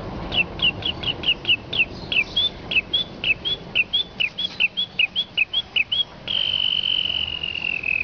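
A man whistling an imitation of birdsong through pursed lips: a quick run of short chirping notes, about four a second, then one long whistle from about six seconds in that slides slowly down in pitch.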